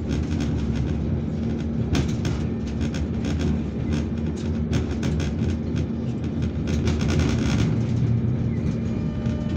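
Alsthom TFS tram running along its track, heard from inside the passenger saloon: a steady low rumble with a steady hum, and a few sharp clicks, the clearest about two seconds in.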